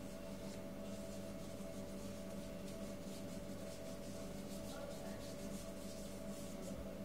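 Paintbrush stroking across paper, a soft repeated brushing at about two strokes a second, over a steady low hum.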